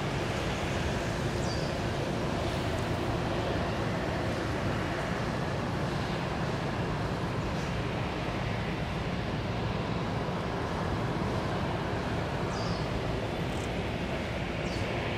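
Steady outdoor background rumble, even and unbroken, with a few faint, short high chirps near the end.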